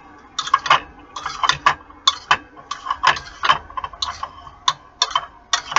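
Metal spoon clinking against a ceramic bowl while stirring diced tomatoes: quick, irregular clinks, several a second.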